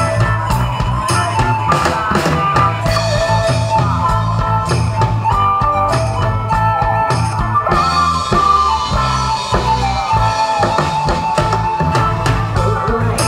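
Live band music: a drum kit keeping the beat under guitar and keyboard, playing continuously.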